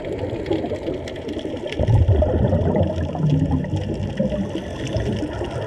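Underwater sound picked up by a camera in its housing: a low, bubbling water rumble that swells about two seconds in, with faint scattered clicks above it.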